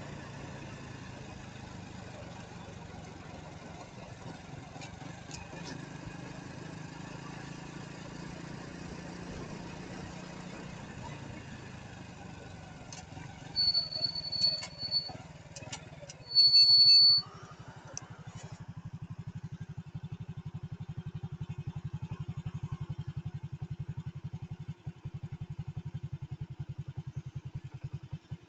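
An engine idling steadily, with a throbbing beat in the second half. Two high electronic beeps sound about halfway through, the second louder and the loudest sound here.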